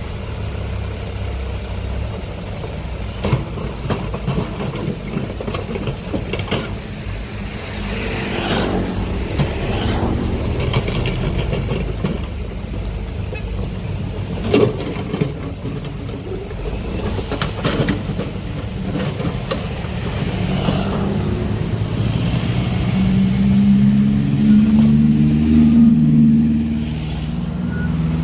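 Heavy diesel machinery running steadily, with several sharp metallic clanks. Near the end the engine note swells louder into a pitched drone.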